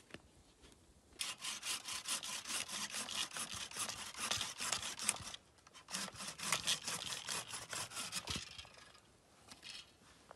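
Hand saw cutting through a wooden branch laid across a stump, in two runs of quick back-and-forth strokes, about four or five a second, with a short pause between them. A dull knock near the end.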